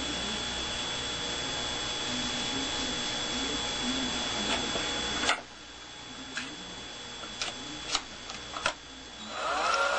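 Hand-spun magnet rotor of a cogging-effect generator whirring on its shaft, a steady mechanical whirr that cuts off abruptly about halfway through. A few sharp clicks of handling follow, and near the end a cordless drill runs briefly.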